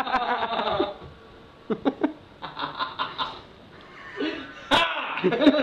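Men laughing in several bursts: a pulsing laugh at the start, short snickers in the middle, and loud laughter again near the end. A sharp knock comes shortly before the end.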